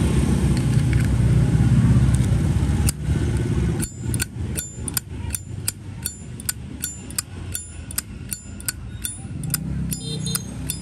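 A new Zippo lighter's hinged lid being flicked open and snapped shut over and over: sharp metallic clicks, about three a second, each with a bright ring. They start about four seconds in, after a loud low rumble.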